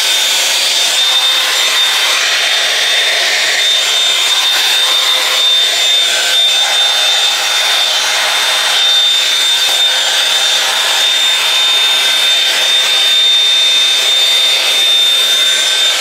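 Shark SmoothStyle hot-air brush running, a steady rush of airflow with a constant high-pitched whine from its fan, as its bristles rub through a section of damp curly hair.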